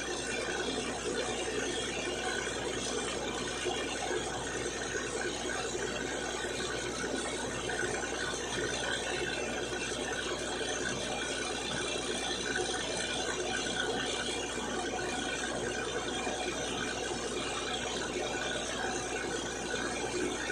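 Truck-mounted borewell drilling rig and its air compressor running, a steady, even mechanical noise with no change or separate knocks.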